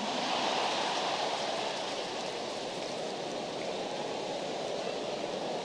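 Large audience laughing and clapping after a joke, an even wash of crowd noise that slowly dies down.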